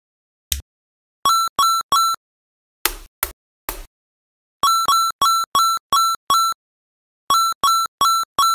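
Repeated electronic ding: a short bright note of one fixed pitch sounding in quick runs of three, six and four, about three a second. Between the runs, small magnetic balls click into place a few times, single sharp clicks.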